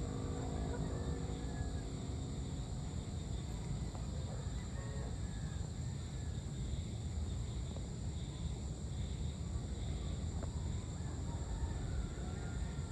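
Evening outdoor ambience: a steady, high-pitched insect chorus over low background noise, with a few faint bird chirps.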